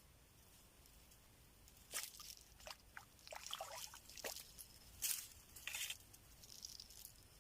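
Near silence at first, then from about two seconds in an irregular run of rustles, clicks and scrapes close to the microphone, loudest about two and five seconds in.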